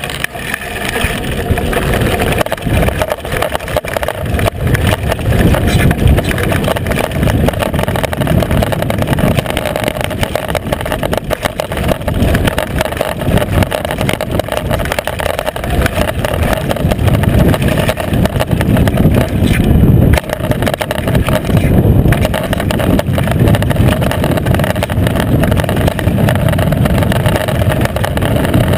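Downhill mountain bike descending a gravel trail: knobby tyres crunching over gravel, the bike rattling and knocking over bumps, under a loud rumble of wind on the seatpost-mounted camera's microphone.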